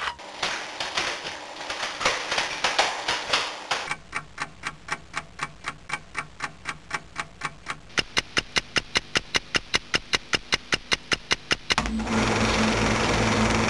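Rapid mechanical clicking: a dense clatter at first, then evenly spaced sharp clicks, a few a second, that get louder and a little faster. About twelve seconds in it gives way suddenly to a steady machine hum with a low drone.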